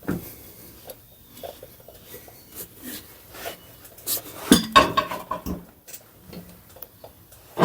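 Metal tools and parts clinking and clanking on a workbench, with scattered light knocks and a cluster of louder, ringing metallic clanks about halfway through.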